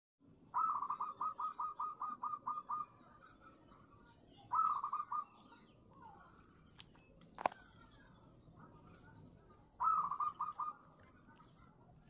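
A bird calling in three runs of quick, evenly repeated short notes, each run starting slightly higher and settling. The first run is the longest, at about a dozen notes. A single sharp click falls midway.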